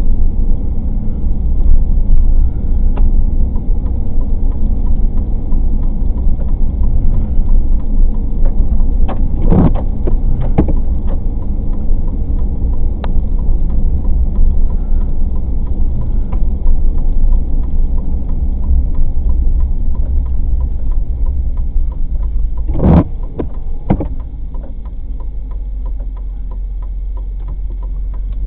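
Steady low road and engine rumble of a car, heard from inside the cabin while driving. A few sharp thumps come about a third of the way in, and again near the end, after which the rumble is a little quieter.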